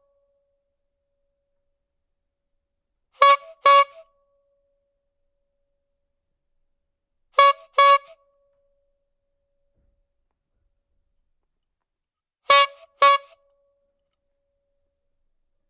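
Clown bulb horn honked twice in quick succession, three times over, with silence between the pairs. Each honk is a short, bright, steady-pitched toot.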